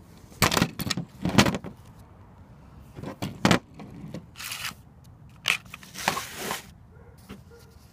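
Handling noise: about six short bursts of rustling and brushing, as plush toys and the camera are moved close to the microphone.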